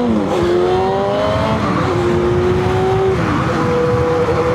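Motorcycle engine pulling under load while shifting up through the gears. Its pitch drops sharply at each shift, about three times, with wind rushing underneath.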